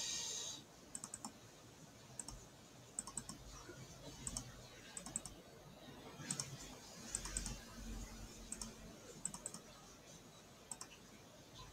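Faint computer mouse clicks, single and in quick pairs or threes, about one cluster a second.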